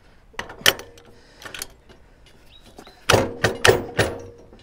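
Steel logging wagon's tongue and fifth-wheel front axle being swung by hand: a few scattered metal clanks and thunks, then a louder cluster about three seconds in with a brief metallic ring.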